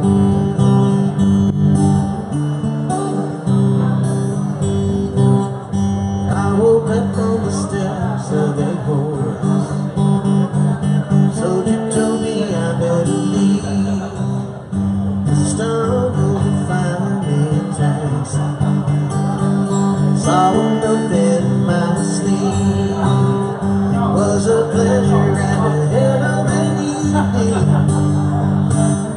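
Instrumental break in a live song, led by strummed acoustic guitar chords, with no singing.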